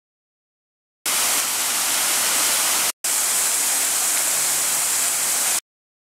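Steady rush and splash of water falling down a garden waterfall wall and fountain jets. The sound cuts in about a second in, drops out for a moment halfway through, and cuts off abruptly shortly before the end.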